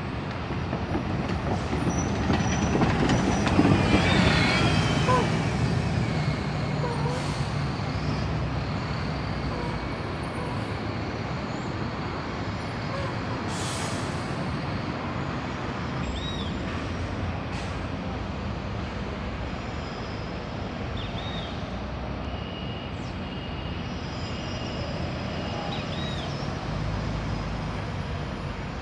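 A city bus engine running as the bus drives past close by, loudest about four seconds in with a falling whine as it goes by, then the steady rumble of other buses moving and idling. A couple of short, sharp air-brake hisses stand out along the way.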